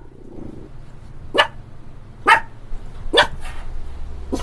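Dog barking: four short, sharp barks spaced about a second apart.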